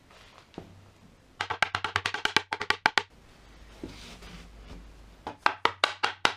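Sharp wooden knocks in two quick runs: a fast run of about ten knocks a second in the first half, then a slower run near the end.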